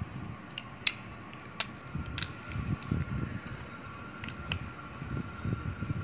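Plastic Lego bricks clicking as they are handled and pressed together: several sharp clicks, with low rustling of fingers on the bricks from about two seconds in. A faint steady hum runs underneath.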